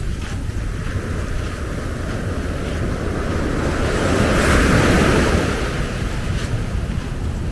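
Ocean surf on a beach with wind rumbling on the microphone; a wave breaks and washes in, swelling to its loudest about halfway through and then fading.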